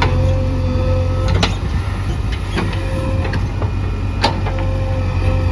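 Heavy diesel engine of earth-moving machinery running steadily under a thin steady whine, with several sharp metallic clanks, the loudest about four seconds in.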